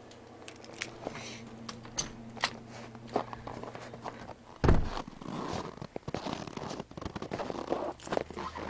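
Sharp clicks and rustling over a steady low hum, then a heavy thump about halfway through, after which the hum stops and irregular footsteps follow.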